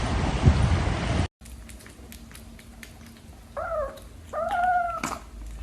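Cat meowing twice: a short call falling in pitch, then a longer, steadier one. Before them a loud windy noise with a thump cuts off abruptly about a second in.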